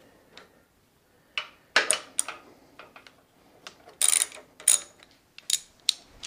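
A socket ratchet clicking in a few short bursts, with metal clinks between them, as a 10 mm tank bolt is worked loose. There are quiet pauses between the bursts, and the loudest clicks come about two and four seconds in.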